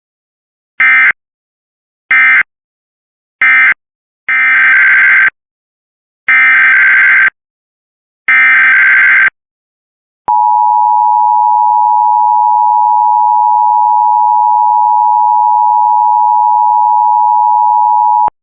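Emergency Alert System tones. First three short bursts of SAME digital data tones, the end-of-message code closing one test. Then three longer data bursts, the header opening the next test. Then the steady two-tone attention signal, held for about eight seconds and cut off sharply.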